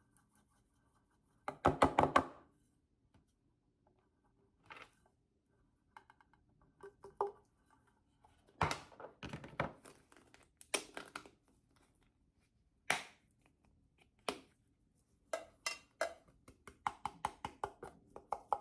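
Black pepper containers being handled during a refill: irregular clusters of sharp taps, clicks and knocks as containers are opened, tipped and tapped to empty the pepper into a larger container. The loudest cluster comes about two seconds in, with more scattered through the rest.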